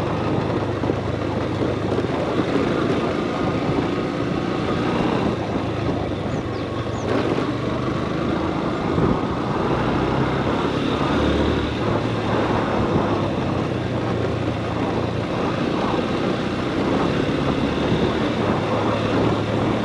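Motorcycle engine running steadily at low speed on a rough dirt track, with rumble and crunch from the tyres on loose gravel.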